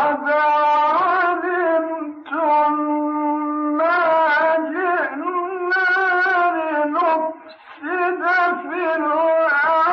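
A man's solo voice in Islamic chant, in the Egyptian melodic style, drawing out long, ornamented held notes. There is a short break for breath about seven and a half seconds in.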